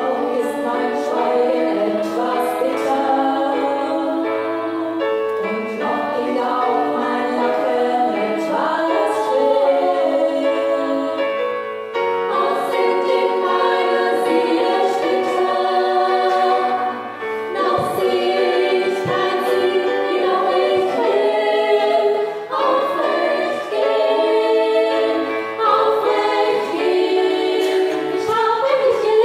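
Women's vocal ensemble of sopranos, mezzo-sopranos and altos singing a song in close harmony, with keyboard accompaniment underneath.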